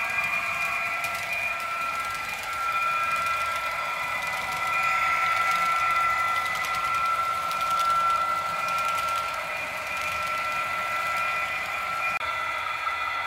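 H0-scale model train running on the layout: a steady electric-motor whine with several held tones and faint wheel ticks, shifting abruptly near the end.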